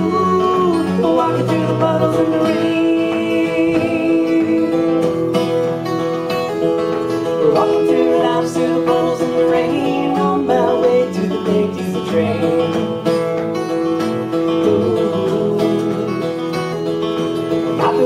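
Acoustic guitar and violin playing together between sung verses, the guitar strumming chords under a sustained, wavering violin melody line.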